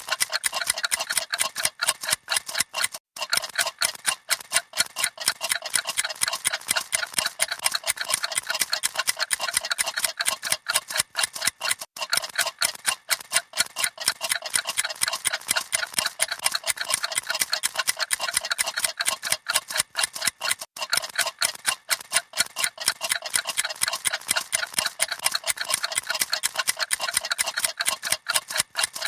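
Many clocks ticking at once, fast and out of step with each other, making a dense, continuous clatter of sharp ticks.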